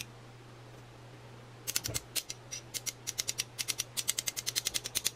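Metal spoon rubbing against a stainless fine-mesh sieve as it pushes powdered sweetener through: a fast run of short scratchy clicks, about seven a second, starting about a second and a half in.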